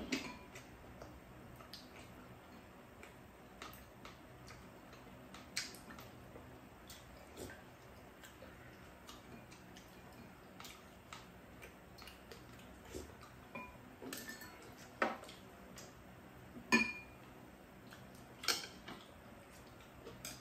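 Chopsticks and spoons tapping and clinking against ceramic bowls and a metal pan during a meal: scattered light taps, with a few louder clinks in the second half.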